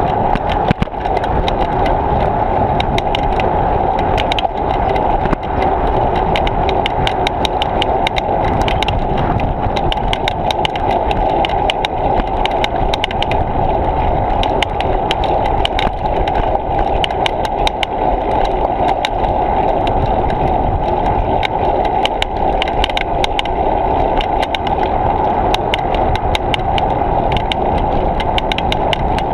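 Riding noise picked up by an action camera on a moving bicycle: a steady rush of wind and tyre rumble, with many small clicks and rattles throughout.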